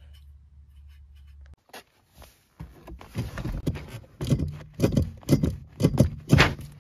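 A faint low hum, then after a brief gap a car's brake pedal pumped repeatedly by foot: a quick series of knocks and clunks, about two a second, with some hiss.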